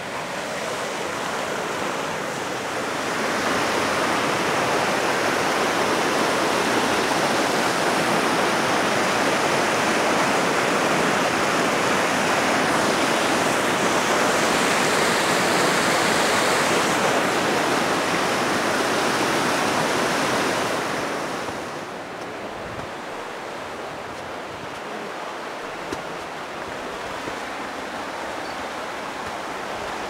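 Mountain stream rushing and churning over rocks in a gorge, a steady loud roar that swells about three seconds in and drops to a softer rush a little after twenty seconds.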